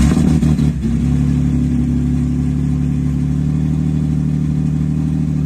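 Turbocharged Nissan 350Z's V6 engine catching with a brief uneven flare, then settling about a second in to a steady idle. It is running again after a new clutch and a refitted flywheel.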